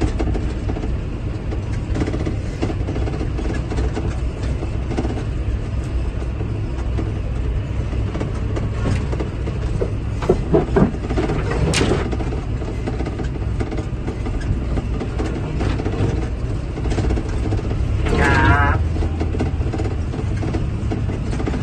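John Deere 8RX tracked tractor's engine running steadily under load, heard from inside the cab, with the rush and splash of floodwater as the tractor pushes a bow wave through it. A few sharp knocks a little past halfway, and a brief warbling sound near the end.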